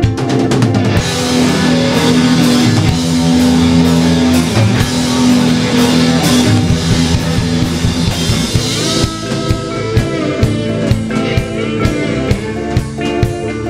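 Live rock band playing electric guitar and drum kit. A loud, dense passage full of cymbal wash drops back to a sparser groove about nine seconds in.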